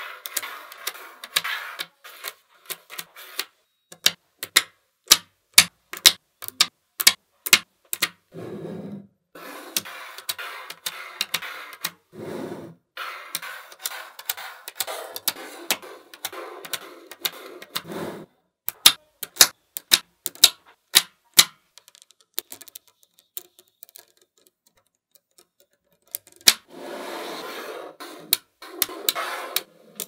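Small neodymium magnet balls clicking sharply as they snap together, in quick runs of single clicks, between stretches of softer rattling as slabs of balls are slid and pressed into place on a tabletop.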